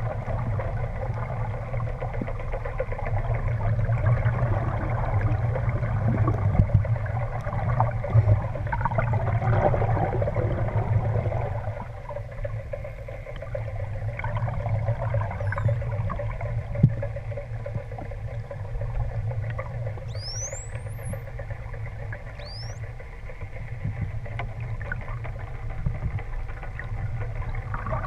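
Underwater recording with a steady low hum and hiss. Over it, a bottlenose dolphin gives short whistles that sweep quickly upward in pitch, twice in the last third and once more at the very end.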